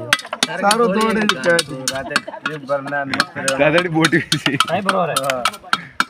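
Iron sickle tip scraping and tapping at a small earthenware pot to cut an opening in its side, giving many quick irregular clicks and scrapes. Men's voices talk over it.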